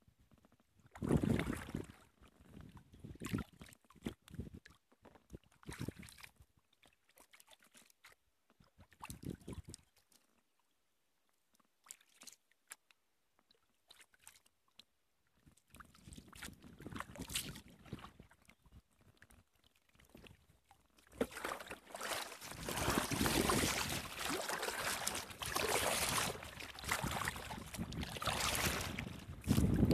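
Kayak paddling: irregular splashes of paddle strokes and water sloshing around the boat, a near-quiet pause about a third of the way in, then a louder, steadier rush of noise over the last third.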